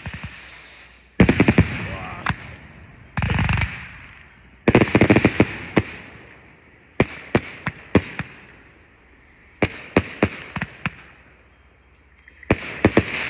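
Multi-shot firework cake firing in volleys: clusters of rapid launch shots and crackling star bursts over a hiss, then scattered single sharp bangs. It goes quieter, and another volley starts near the end.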